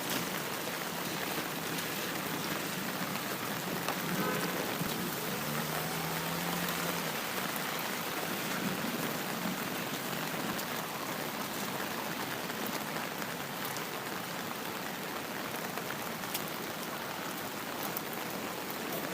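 Steady rain falling and pattering on surfaces, an even hiss.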